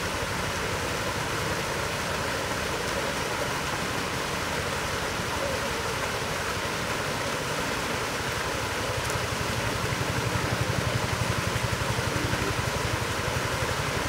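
Steady rushing noise with a low rumble underneath, growing a little louder in the second half; no bird calls stand out.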